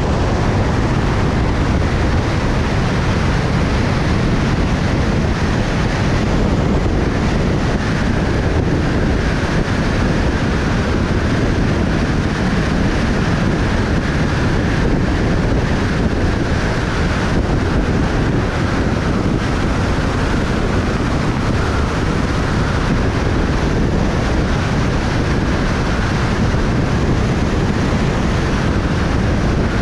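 Loud, steady rush of wind buffeting a body-mounted camera's microphone during a wingsuit flight: the airflow noise of high-speed gliding flight.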